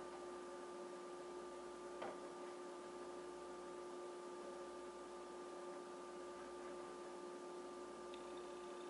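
Faint steady electrical hum made of several even tones over a light hiss, with one short click about two seconds in.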